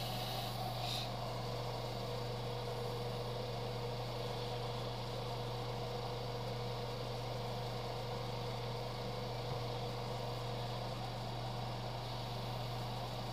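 Steady motor hum with a faint even hiss from running airbrushing equipment. About a second in comes one short hiss of an airbrush spray.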